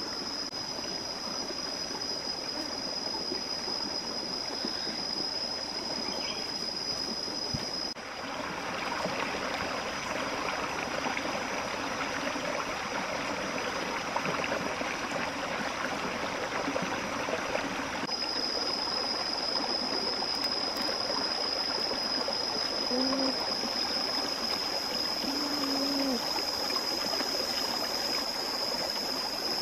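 Steady rushing noise of a flowing stream, with a constant high whine running above it. The rush grows louder from about eight seconds in and drops back about ten seconds later.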